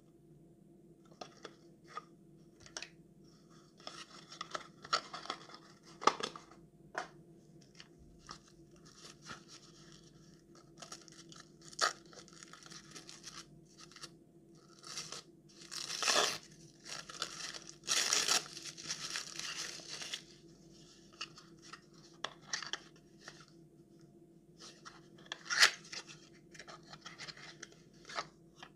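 Small kraft-cardboard ink boxes being handled and opened: cardboard rustling and scraping, flaps flexing, with scattered light clicks and taps. The loudest rustling comes in two bursts about halfway through, and a sharp click comes near the end.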